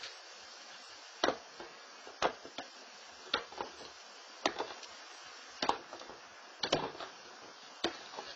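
Seven sharp knocks, about one a second, over a low steady hiss.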